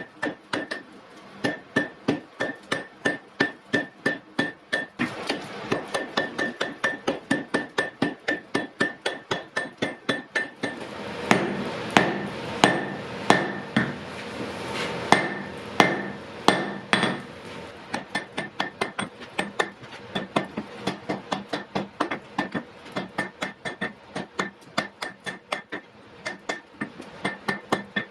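Hammer blows on iron at the anvil in a fast, even rhythm, each with a short metallic ring. From about eleven seconds in, for several seconds, the blows come louder and further apart.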